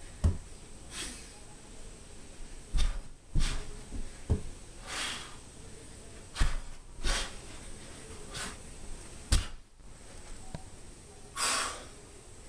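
A man breathing hard in sharp, hissing breaths every second or two during mountain climbers, the longest breath near the end, with dull thuds of hands and feet on a carpeted floor.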